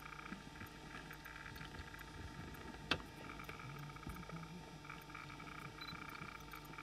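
Lion feeding on a giraffe carcass at close range, with faint tearing and chewing and one sharp crack about three seconds in. Underneath run a steady low hum and a pulsing high chirping that fades in the middle and returns near the end.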